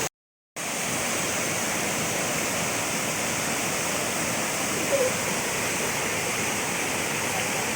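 Waterfall's water falling and rushing in a steady, even noise. The audio cuts out completely for about half a second at the very start.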